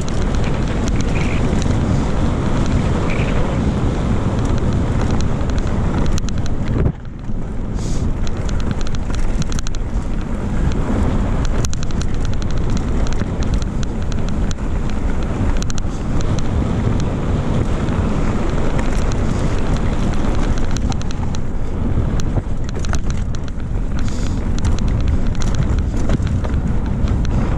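Wind rushing over the microphone on a fast mountain bike descent, with the crunch and rattle of the tyres and bike over a loose, stony dirt track. The wind noise drops briefly about seven seconds in.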